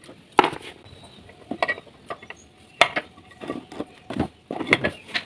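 Irregular metal clicks, knocks and scrapes as the loosened cylinder head cover of a Honda Vario 125 engine is worked free and lifted off.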